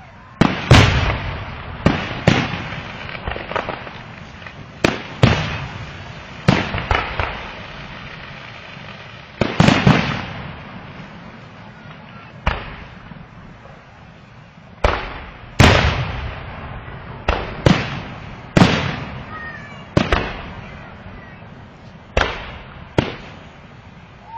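Fireworks going off: an irregular series of about sixteen loud bangs, each trailing off in a rumbling echo, some coming in quick pairs.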